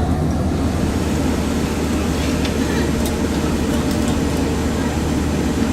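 Cabin noise inside a Boeing 777-300 heard from a window seat: a steady low rumble of the engines and airflow with a constant hum, and a few faint clicks.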